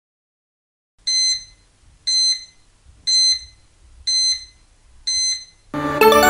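Quiz countdown-timer sound effect: five short electronic beeps about a second apart, then a loud musical chime starts near the end as the time runs out.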